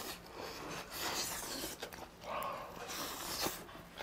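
Close-up eating sounds: a man biting and chewing pieces of grilled flounder, with two longer breathy swells about a second in and again from two and a half seconds in.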